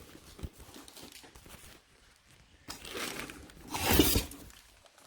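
Plastic packaging crinkling and tearing as a CB radio is pulled out of its bag, in two louder bursts about three and four seconds in.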